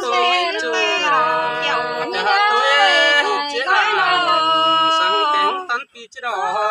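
A man and a woman singing together unaccompanied in Tai (Thái) folk style, with long held, wavering notes. The singing breaks off briefly about six seconds in, then starts again.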